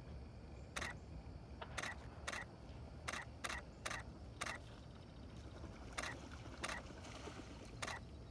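Camera shutter firing single frames, about ten sharp clicks at uneven intervals over a faint low rumble.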